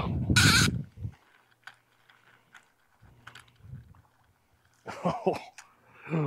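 A man's voice for about the first second, then a near-silent stretch with a few faint clicks, and voices again near the end.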